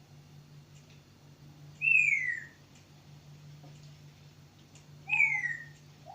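A pet talking bird whistling two loud, clear notes about three seconds apart, each gliding downward in pitch. A short lower note follows the second whistle, and another low note rises and holds near the end.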